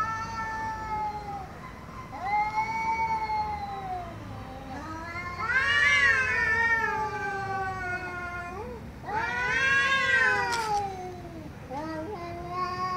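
Two tabby cats in an angry face-off, caterwauling: a run of long, wavering yowls that rise and fall in pitch, the two loudest in the middle. A brief click is heard near the end.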